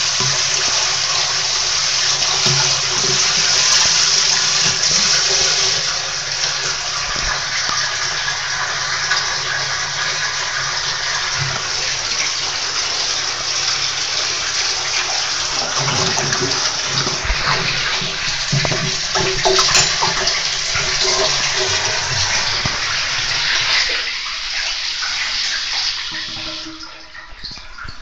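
Hoover wringer washing machine running: water churning and sloshing in the tub, with a steady hum under it. The sound drops away in the last few seconds.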